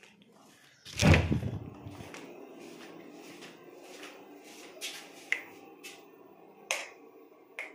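A loud thump about a second in that dies away over about a second, followed by a low steady hum with short clicks repeating two to three times a second.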